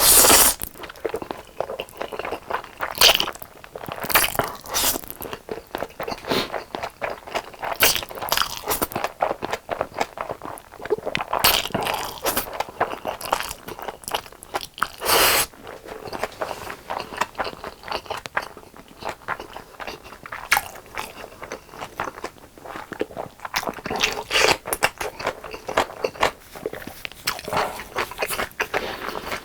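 Crispy fried chicken being bitten and chewed close to the microphone: repeated loud crunches at irregular intervals, the biggest right at the start and about fifteen seconds in, with softer chewing between.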